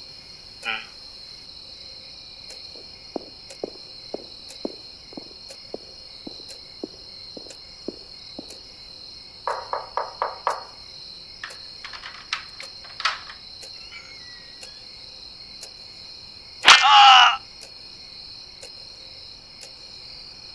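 Crickets chirring steadily, with a run of faint regular ticks at about two a second early on, a few short knocks in the middle, and one loud, brief burst of sound about three-quarters of the way through.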